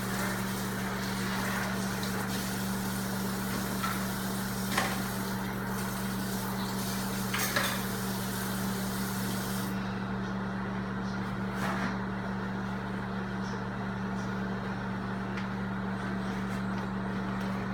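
Microwave oven running on low power with a steady electrical hum. There are a couple of faint clicks about five and seven and a half seconds in, and a hiss in the background drops away about ten seconds in.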